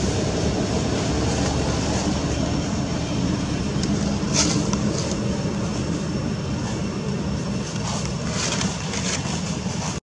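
Steady low engine drone with a constant hum, a few faint ticks about four and a half and eight and a half seconds in.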